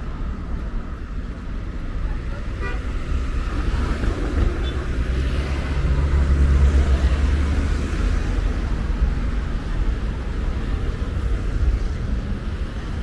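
Street traffic: cars running past on a city boulevard, with a steady low rumble that swells as a vehicle passes close about halfway through, then eases off.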